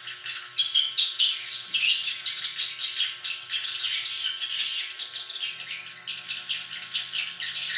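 Swiftlets twittering in a dense, continuous chatter of rapid chirps and clicks.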